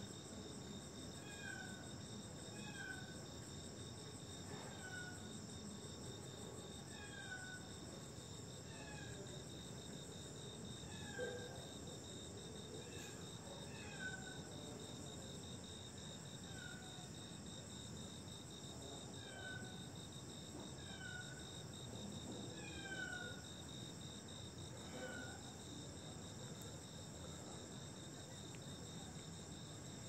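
Night ambience: crickets chirring steadily in a high, even chorus. Over it, a short falling call repeats about every second and a half. There is a brief louder sound about eleven seconds in.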